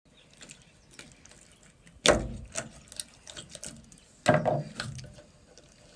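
Wet clicks and scrapes of a knife working through a trout as it is gutted on a cleaning board, with two louder, sudden knocks about two and four seconds in.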